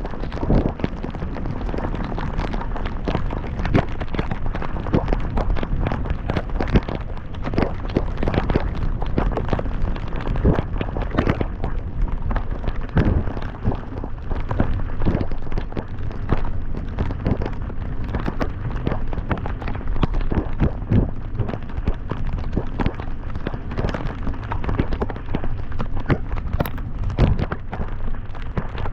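Heavy rain hitting the camera and car while driving: a dense, irregular patter of sharp drop impacts and pops over a steady low rumble of the car on the wet road.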